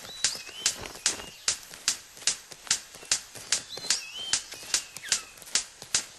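Male superb bird of paradise in courtship display: a steady run of sharp clicks, about two and a half a second, with a few short curling whistled notes among them.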